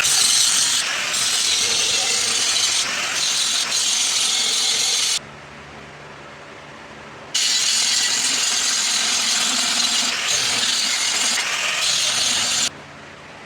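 Angle grinder cutting into rebar steel with a fresh disc: a loud, harsh hiss in two runs of about five seconds, broken by a quiet gap of about two seconds.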